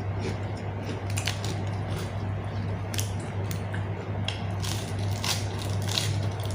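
Close-miked chewing and crunching of food, a run of short crisp crackles, over a steady low hum.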